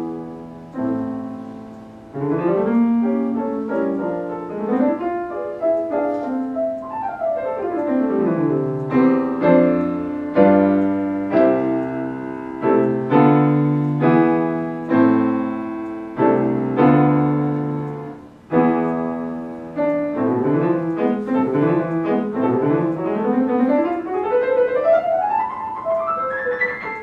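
Solo piano playing a fast piece, with a quick run downward about seven seconds in and a long rising run near the end, after which the playing stops.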